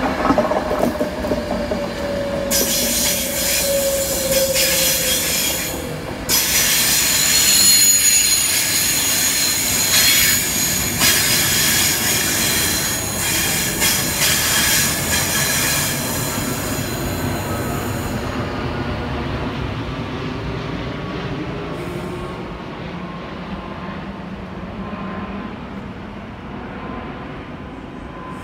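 Virgin Class 390 Pendolino electric train pulling in and braking: a falling whine at first, then a loud hiss with high wheel and brake squeal, dying away steadily as the train slows to a stop.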